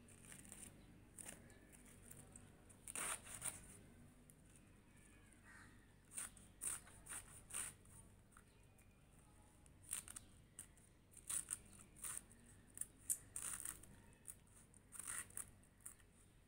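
Cabbage being sliced against the upright blade of a boti: crisp, crunchy cuts through the packed leaves, in short irregular runs of a few strokes with pauses between.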